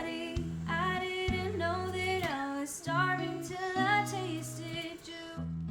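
Background music: a woman singing a pop song to acoustic guitar. Her voice drops out just before the end while the guitar keeps playing.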